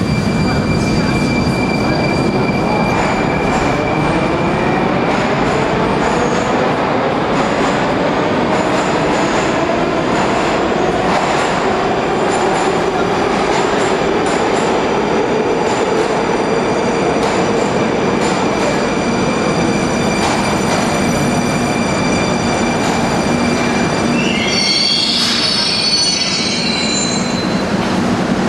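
Metro train running in the station: a steady rumble with an electric motor whine that climbs in pitch and later eases down, and a brief high-pitched wheel squeal near the end.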